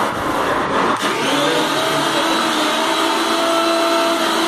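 Mixer grinder's brushed motor running without a jar, a loud steady whine. About a second in the pitch rises, then holds steady. This is a trial run after its relay was replaced, and it shows the mixer working again.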